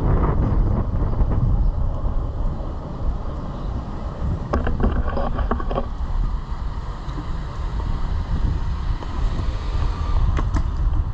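Longboard wheels rolling over pavement: a steady low rumble with wind buffeting the microphone, and a short run of clicks about halfway through.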